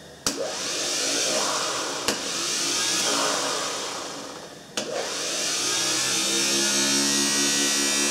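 Sno-Way snow plow's DC pump motor, freshly fitted with a new bearing and brushes, powered from jumper-cable clamps. A sharp click as the clamp makes contact, then the motor spins up with a rising whine and runs steadily. It sags and slows toward the middle, another click comes, and it spins up again and runs on.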